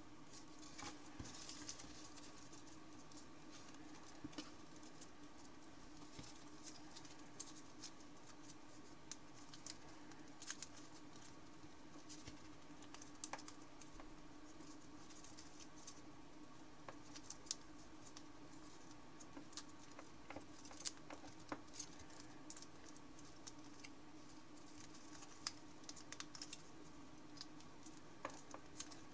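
Thin origami paper rustling and crinkling faintly as fingers pinch and shape a folded paper frog, with scattered small crisp ticks and soft patches of rustle.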